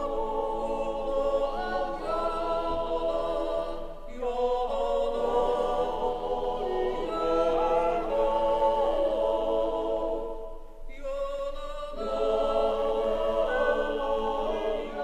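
Background music: a choir singing slow, sustained phrases, with short breaks between phrases about four and eleven seconds in.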